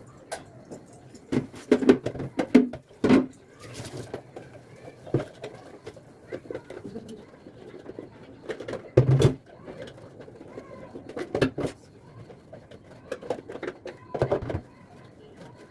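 Pigeons cooing in the background, with sharp knocks and clatter of fridge racks and trays being handled while they are washed.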